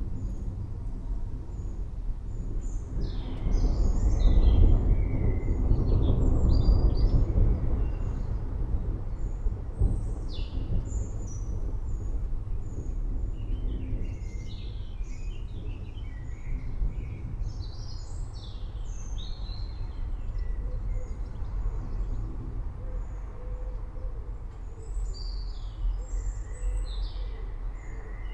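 Low rolling thunder that swells about four seconds in and fades over several seconds, over a steady rain and rumble bed, with birds chirping throughout.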